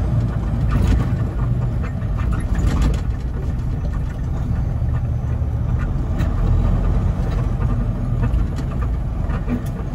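Semi truck's diesel engine running at low speed, a steady low rumble heard from inside the cab, with a few faint clicks and rattles.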